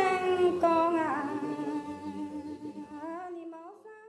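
A woman sings the last drawn-out phrase of a Dao Thanh Phán folk love song (hát Dao duyên). She holds long notes that slide up and down in pitch and fade away toward the end.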